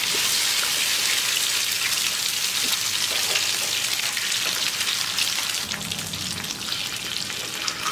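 Eggs frying in grease on a plow disc (discada), a steady crackling sizzle that eases slightly after about five seconds.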